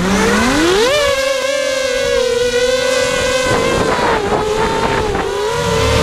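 Racing quadcopter's four Multistar 2204 2300KV brushless motors with Gemfan 5040 propellers whining as they spool up for takeoff. The pitch rises steeply in the first second, then holds with small wobbles as it flies, over low rumbling wind noise.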